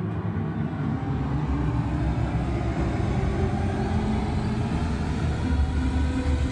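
Samsung HW-Q900A soundbar and subwoofer playing a Dolby Atmos test soundtrack: a steady, deep rumble that grows heavier in the bass near the end.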